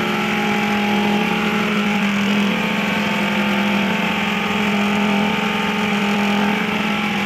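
A motor running steadily with a constant, unchanging hum.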